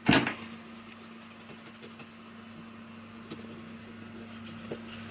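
A sharp knock right at the start, then a steady low electrical hum from the bench equipment, with a couple of faint light ticks later on.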